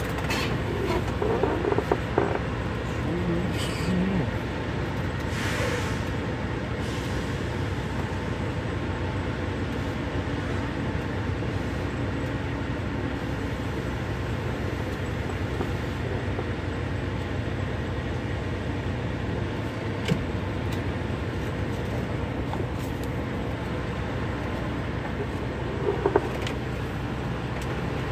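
Semi-truck diesel engine idling steadily, heard from inside the cab, with a few brief knocks and clicks.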